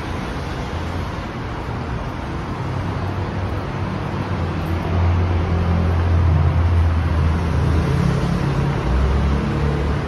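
Dense city road traffic: a steady rumble and hiss of many cars and motorbikes passing below, growing louder around the middle.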